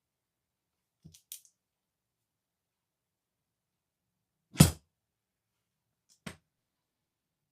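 A few sharp clicks and one much louder knock about four and a half seconds in, from small hard objects being handled and set down, with dead silence between.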